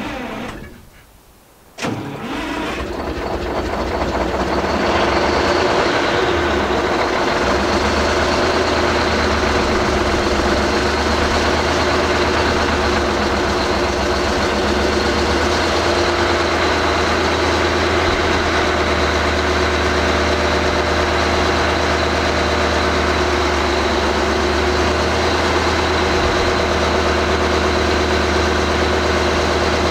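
Detroit Diesel 12V92TA twin-turbo V12 diesel cold-starting with no glow plugs or cold-start aid: it falls away briefly, catches suddenly about two seconds in, builds over the next few seconds and settles into a steady idle, with a faint high whine coming in as it settles.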